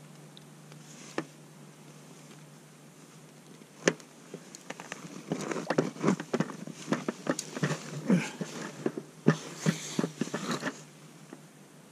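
Close handling noise from an ice angler and his gear: a sharp knock about four seconds in, then a busy run of clicks, taps and rustling that stops shortly before the end.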